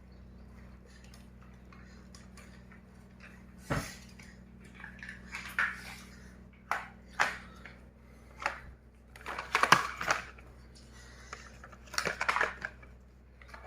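Small hard plastic pieces being handled: irregular clicks, knocks and short rattling clatters over a faint steady hum, busiest around the middle of the stretch.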